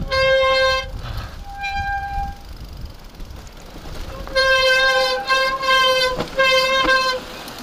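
Mountain bike disc brakes squealing in repeated bursts on a descent: a steady high-pitched tone, short twice at first, then on and off for about three seconds near the end. Beneath it, the tyres rumble over the dirt trail during the first few seconds.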